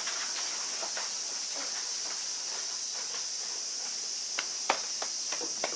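A steady high hiss throughout, then a few short, sharp taps or clicks starting about four seconds in.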